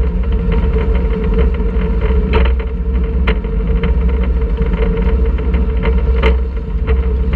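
Wildfire wooden roller coaster train being hauled up its chain lift hill: a steady mechanical hum over a low rumble, with rapid clicking from the lift and a few louder clacks.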